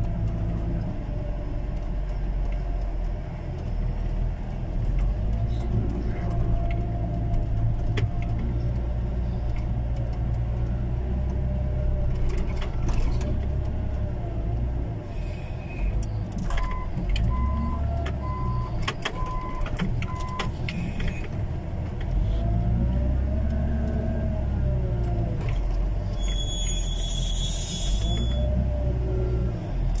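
Wheel loader's diesel engine running under load, heard from inside the cab, its revs rising and falling as it works, with knocks and rattles from the machine. A little over halfway through, its reversing alarm beeps about five times in a steady rhythm.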